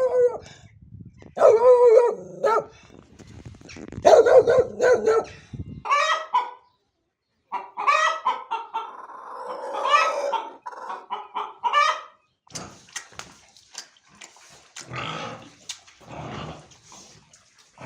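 A dog's calls for about the first six seconds, then chickens clucking, then from about twelve seconds in a pig's short grunts.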